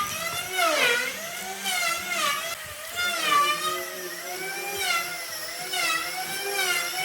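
High-pitched power tool motor whining, its pitch repeatedly dipping and recovering about once a second as it bogs under load and speeds back up.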